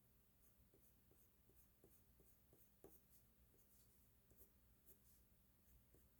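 Faint drawing strokes on paper: a string of short, quick scratches a few tenths of a second apart, the loudest about three seconds in, as in sketching a doll's eyelashes.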